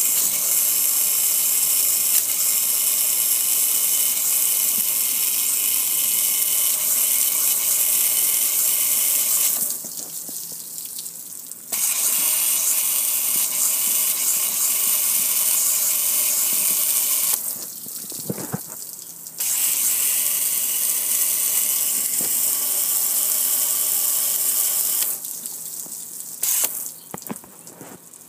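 Water spraying onto a gas grill and splashing down its lid and cabinet, a steady hiss that stops briefly three times.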